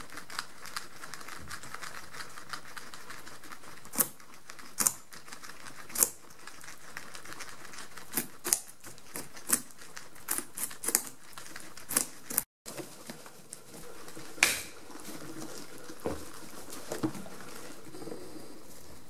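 Several guinea pigs gnawing and crunching on a whole pumpkin: irregular sharp chewing clicks and scrapes, with the sound dropping out for an instant about two thirds of the way through.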